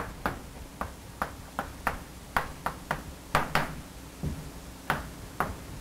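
Chalk writing on a blackboard: a quick, irregular series of sharp taps and short strokes as the words are written.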